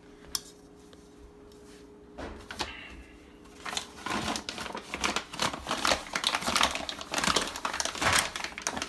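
Paper flour bag being handled and opened, rustling and crinkling: a few scattered clicks, then a dense run of rapid crackles from about four seconds in.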